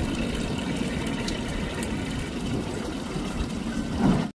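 Steady rush and wash of water with a low engine rumble underneath aboard a small fishing boat, stopping abruptly at the end.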